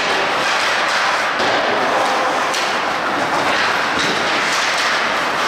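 Steady, noisy din of an indoor ice hockey rink during play, with a few faint knocks.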